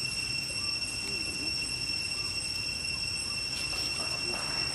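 Outdoor ambience: a steady, unbroken high insect drone over a low background rumble.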